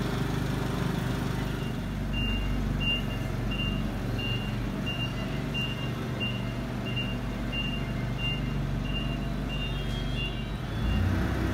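Nissan forklift reversing, its backup alarm sounding a steady single-pitch beep about one and a half times a second over the running engine. The beeping starts about two seconds in and stops near the end.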